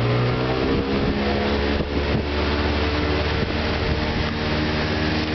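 Pontoon boat's motor speeding up, its pitch rising over the first second, then running steady at speed, with wind and water rushing past.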